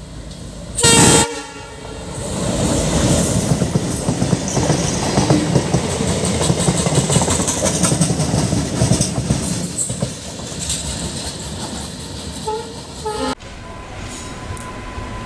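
One short, loud train horn blast about a second in, then a train passing at speed, its wheels clattering over the rail joints. The passing noise eases after about ten seconds and drops off sharply near the end.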